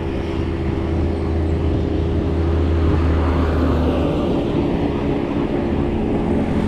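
A motor vehicle's engine running close by, a low steady hum that stops about four seconds in, over road and wind noise heard from a moving bicycle.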